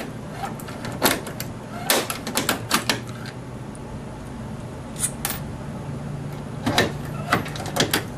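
Hand rivet gun setting aircraft rivets: a series of sharp mechanical clicks and snaps as the handles are squeezed stroke after stroke. The clicks come in two groups a few seconds apart, with a quieter pause between while the next rivet goes in.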